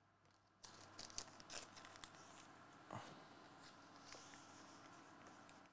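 Near silence with faint rustling and light ticks of trading cards being handled and set down on a desk.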